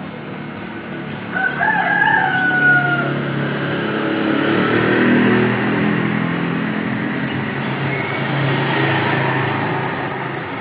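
Street traffic with motor vehicle engines running and passing, swelling in the middle. About a second in, a rooster crows once, a wavering call that falls away.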